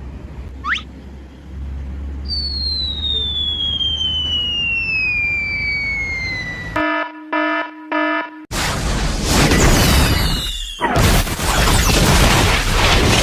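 Cartoon-style sound effects: a quick rising whistle, then a long falling whistle like a dropping bomb, three short buzzing beeps, and then a loud explosion blast that rumbles on for several seconds.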